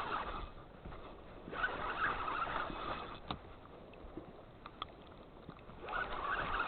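Fishing reel being cranked in three short bursts of winding while fighting a catfish that is holding on the bottom, with a couple of faint clicks between.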